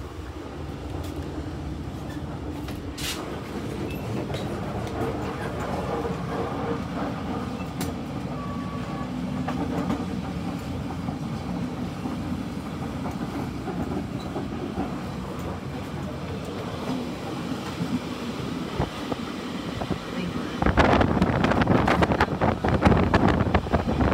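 Passenger train coach running along the track: a steady low rumble of wheels on rails, turning much louder and rougher about three seconds before the end.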